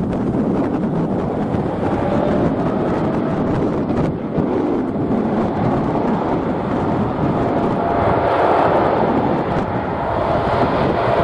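Jet engine noise from a Boeing 747-8 freighter's four GEnx-2B turbofans on its takeoff departure: a loud, steady roar that swells slightly in the last few seconds, with a faint steady whine running through it.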